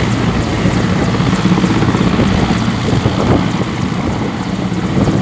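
Helicopter rotor and engine running loud and steady, the rotor blades giving an even, repeating chop.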